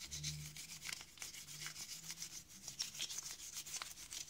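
Toothbrush scrubbing coffee-ground residue off a plastic and metal coffee-grinder part, in many quick, irregular strokes.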